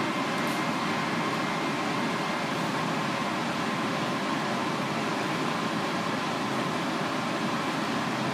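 Steady ventilation-fan noise: an even hiss with a faint steady hum, unchanging throughout.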